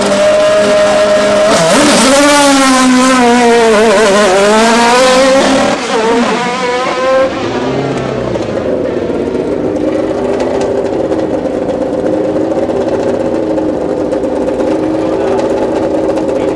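Single-seater racing car engine being revved hard in quick rises and falls for several seconds. About six seconds in the sound drops, and a racing engine idles steadily at a lower pitch.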